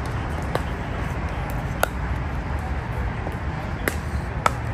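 Pickleball paddles striking the hard plastic ball in a rally, several sharp pops a second or two apart, the clearest two near the end, over a steady low outdoor rumble.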